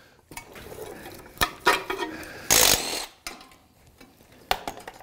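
Cordless ratchet briefly spinning out the bolt that holds the rear ABS sensor on an Acura Integra's rear knuckle, in a short burst about two and a half seconds in. Around it come sharp clicks and knocks of metal parts being handled.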